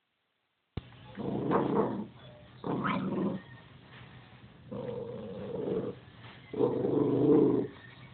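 A puppy giving four drawn-out, growly barks, each about a second long with short pauses between.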